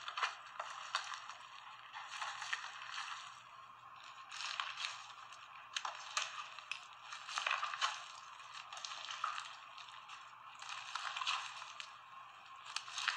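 Hands squeezing and kneading fluffy slime mixed with shaving cream and play-doh: wet squishing and crackling with sharp popping clicks from air pockets, coming in irregular bursts every second or so. It sounds thin, heard through a device speaker.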